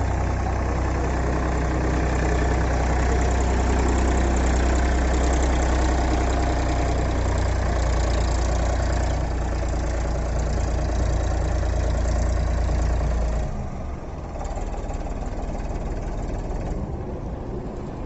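Powertrac Euro tractor's diesel engine running as the tractor is driven, with a heavy, steady low rumble that drops away suddenly about 13 seconds in, leaving a lighter engine sound.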